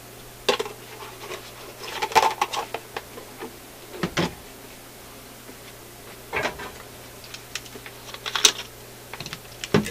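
Scattered clicks, taps and light clatter of small hard objects being handled on a workbench, the loudest about eight and a half seconds in, over a faint steady low hum.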